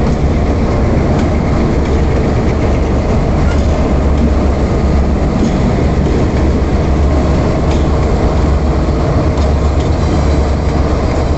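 Diesel freight locomotives passing close by: the engines' steady low drone over the rumble of steel wheels on rail, with a few sharp clicks from the wheels along the track.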